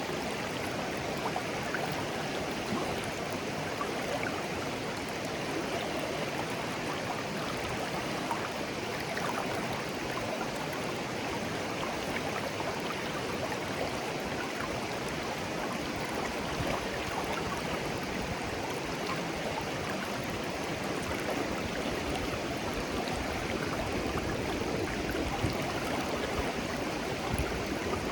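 A shallow, clear stream flowing and babbling over stones, a steady rush of water with small splashes and gurgles throughout.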